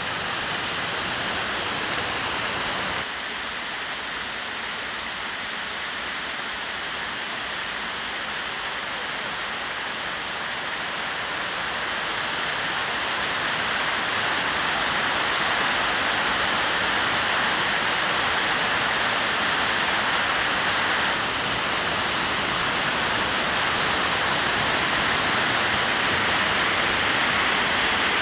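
Rushing water of a mountain stream, a steady dense hiss that grows louder partway through and changes abruptly twice.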